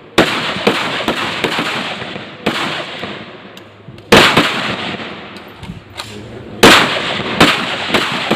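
Gunfire at firing practice: about ten irregularly spaced gunshots, each trailing off in an echo, the loudest about four and six and a half seconds in.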